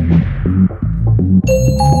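Electronic background music with a pulsing, throbbing bass beat. A whoosh sweeps down at the start, and a bright bell-like chime rings out about a second and a half in.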